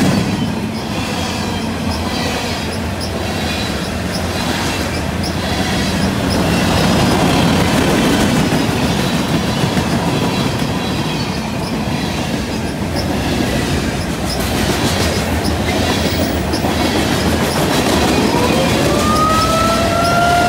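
Freight cars rolling past, a steady rumble with the clickety-clack of wheels over rail joints. Near the end an outdoor warning siren starts up, its tone winding up steadily in pitch during its monthly test.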